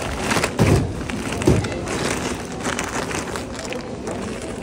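Large woven-plastic shopping bag rustling as items are packed into it. Two dull thumps land within the first two seconds, over steady background noise.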